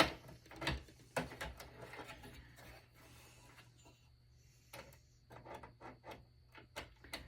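Needle-nose pliers working a small hex screw off the steel frame of a desktop PC: scattered sharp clicks and knocks of tool on metal, the loudest right at the start, with faint scraping between them.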